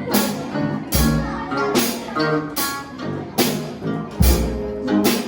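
Music with guitar over a steady beat of sharp drum hits, about one a second.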